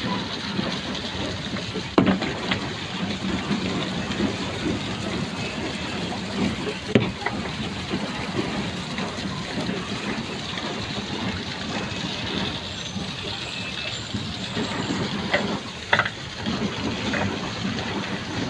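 Steady rush of water and wind aboard a small open boat moving across the water, with a few sharp knocks: about two seconds in, around seven seconds, and near the end.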